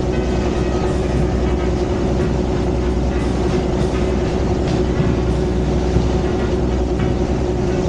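Charter fishing boat's engine running steadily under way: a constant drone with a steady hum and a deep rumble beneath it.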